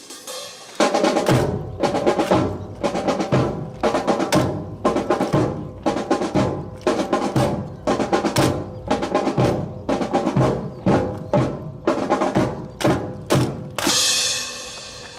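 Drum-driven music with strong bass and snare drum beats, about two a second, starting about a second in and ending on a crash near the end.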